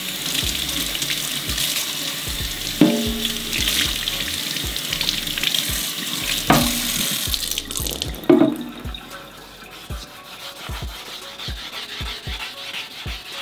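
Kitchen faucet water running over a painted plastic rear apron in a stainless steel sink while it is wet sanded by hand with a sanding block. The water is louder for the first eight seconds or so, then quieter. Three knocks, each with a short ring, come about three, six and a half, and eight seconds in.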